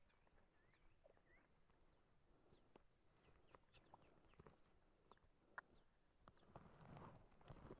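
Near silence: faint outdoor ambience with scattered small chirps and clicks, and a brief rustle of hand and clothing handling near the end.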